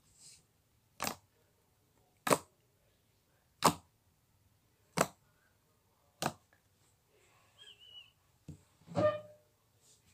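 Fluffy marshmallow slime being pressed and poked for ASMR: five sharp air-pocket pops about once every second and a quarter, then softer squishes and one longer squelch near the end.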